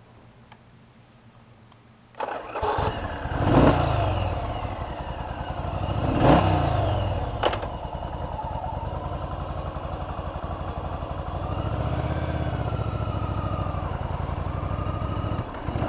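Yamaha Virago V-twin motorcycle engine starting about two seconds in, revved up and down twice, then settling to a steady idle. A sharp click comes about halfway through.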